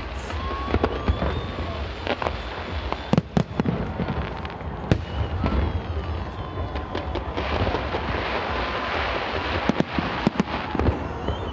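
Fireworks display: a series of sharp bangs from bursting shells, with a dense crackling hiss for a few seconds from about seven seconds in, as glittering crackle stars go off.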